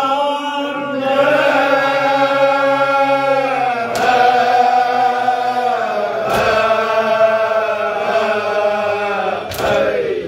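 A group of men chanting a Shia mourning lament (nauha) together in long, drawn-out wavering notes, with three sharp slaps of hands beating on chests (matam) spaced through it.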